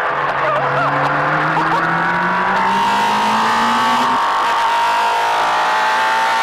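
Two-seater race car's engine accelerating hard, its note climbing steadily for about four seconds before dropping suddenly.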